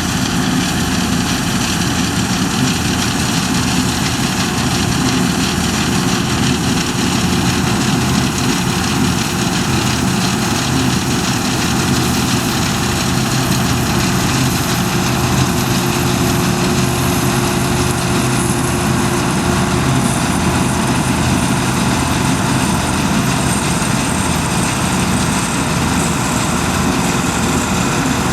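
New Holland Clayson 8060 combine harvester running steadily, engine and machinery at an even pitch, with a faint high whine slowly falling in pitch over the second half.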